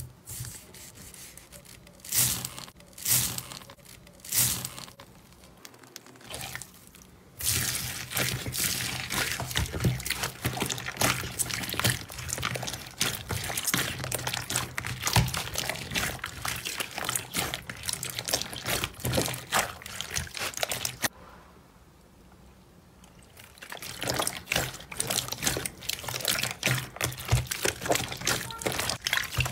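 Hands squishing and kneading clear green slime packed with white foam beads, a dense run of small crackles and squelches. The first few seconds hold a few separate presses, the crackling runs on steadily from a few seconds in, stops briefly about two-thirds of the way through, then resumes.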